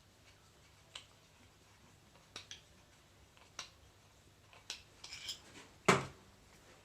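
Scattered small metallic clicks and taps as the steel parts of a hydraulic control valve are worked loose and handled, with a louder sharp clink near the end.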